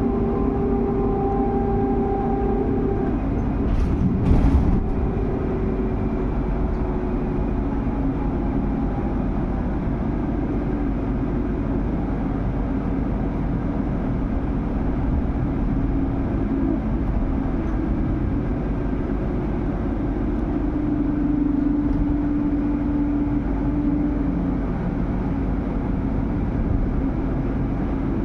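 Solaris Urbino 12 electric bus under way, heard from inside: road and running noise with a steady electric-drive whine whose pitch slowly shifts with speed. A brief loud knock about four seconds in.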